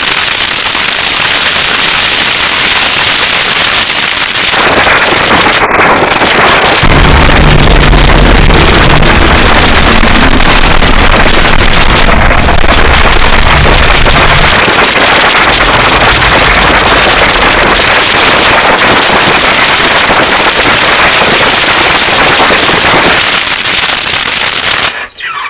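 A synthetic Godzilla atomic breath sound effect: a long, loud, hissing and crackling blast, with a deep rumble underneath for several seconds partway through. It cuts off abruptly near the end.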